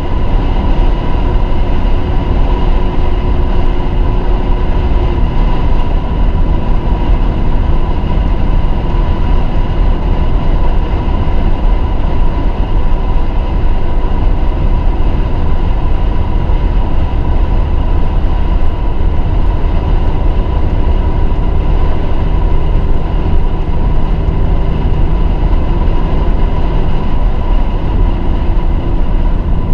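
Mercedes-AMG GLE 43 driving at speed: a steady, loud rush of tyre and wind noise with the twin-turbo V6's drone underneath, its note shifting lower about five seconds in.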